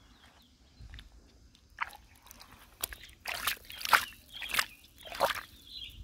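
Wet mud and water being worked by hand in a dig for clams: about half a dozen short sloshing, squelching strokes, the loudest about four seconds in.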